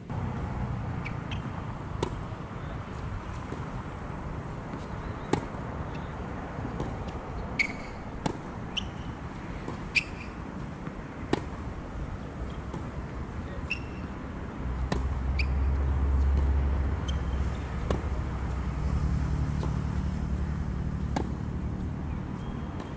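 Tennis rally on a hard court: sharp pops of balls struck by rackets and bouncing, every one to three seconds. Underneath runs a steady low rumble that grows louder for a few seconds past the middle.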